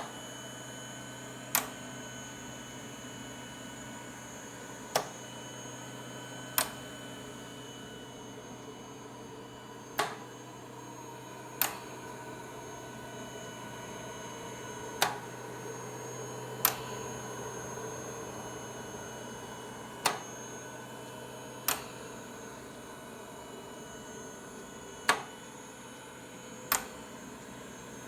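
Mechanical ventilator running with a steady hum and a faint whine. Sharp clicks come in pairs, one pair every five seconds, with about a second and a half between the two clicks of a pair.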